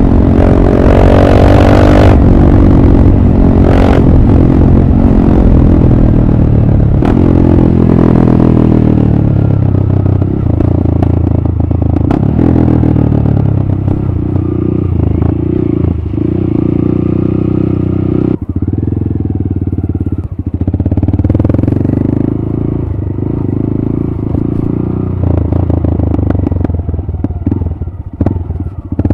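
Honda MSX125 (Grom) single-cylinder 125cc engine through a TYGA Performance aftermarket exhaust, revving up hard through several quick gear changes, then backing off and running at lower, steadier revs. Scattered sharp clicks come in the second half.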